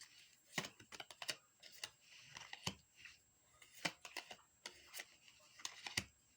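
Tarot cards being handled: scattered, irregular sharp clicks and taps with a few short soft rustles.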